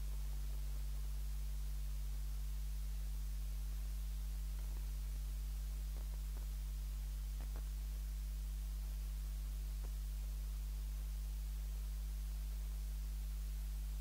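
Steady low electrical mains hum with faint hiss and no speech, with a few faint clicks about six to seven and a half seconds in.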